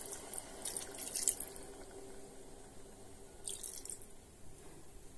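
Water poured from a steel tumbler into a pot of masala-coated chicken: faint trickling and splashing, in two spells about a second in and again a little after three seconds, over a faint steady hum.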